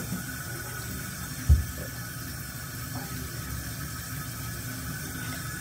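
Bathroom sink tap running steadily, with a single low thump about a second and a half in.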